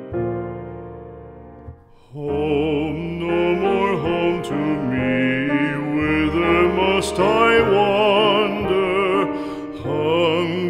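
Background music: a slow song with piano alone at first, then about two seconds in a singer comes in over the piano, the voice wavering with vibrato.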